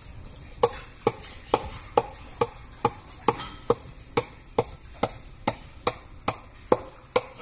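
A knife or cleaver chopping steadily on a cutting board, about two strikes a second, starting about half a second in.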